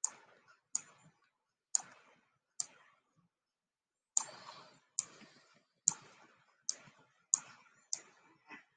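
Computer mouse button clicking: about ten sharp single clicks at an uneven pace, with a pause of a second or so near the middle.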